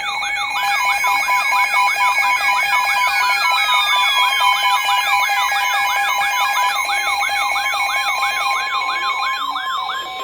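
Emergency alert tones: a steady two-tone attention signal with a fast siren-like warble over it, about three rising-and-falling sweeps a second, and two slow falling whistles. The warble stops just before the end.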